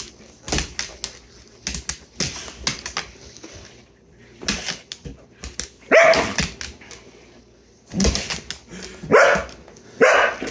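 A husky barking in loud, agitated bursts, about four times in the second half, reacting to a person spinning; the owner reads it as angry. Before the barks there are scattered quick clicks and rustles.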